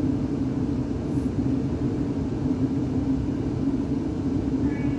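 Cabin of a Class 360 electric multiple unit standing at the platform: a steady low hum from the train's onboard equipment, with no movement or wheel noise.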